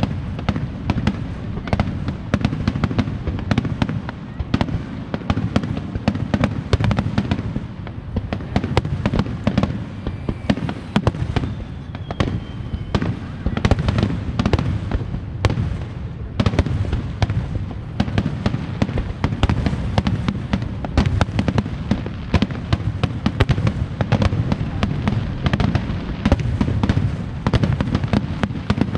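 Aerial fireworks going off in a dense, continuous barrage: many bangs and crackles a second over a deep rumble.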